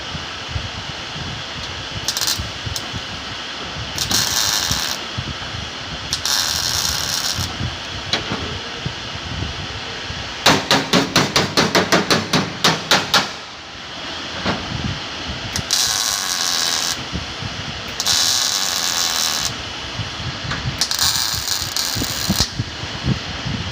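Body-shop metalwork on a car: a rapid run of about a dozen sharp strikes, about five a second, some ten seconds in, with several short hissing bursts over a steady background noise.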